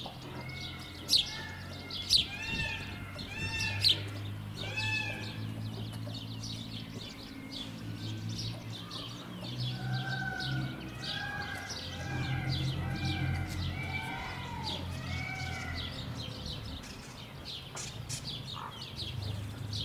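Small birds chirping over and over in short arched notes and quick high chirps, with a steady low hum underneath.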